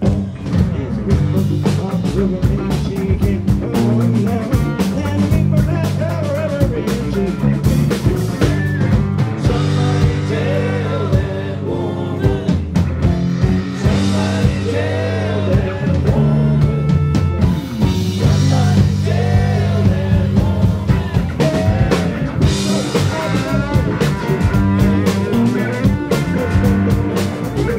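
Live rock band, a jam band, playing a full-band passage: drum kit keeping a steady beat under bass and a bending melodic lead line.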